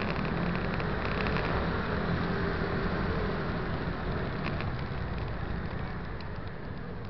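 Three-wheeled scooter riding over cobblestones, picked up by a camera on the scooter: steady engine, tyre and wind noise, getting a little quieter near the end.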